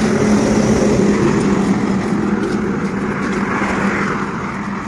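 Steady motor-vehicle engine hum with road traffic noise, swelling a little near the end.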